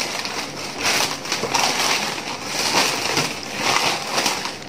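Plastic courier mailer bag crinkling and rustling as the parcel inside is pulled out of it, with many irregular crackles.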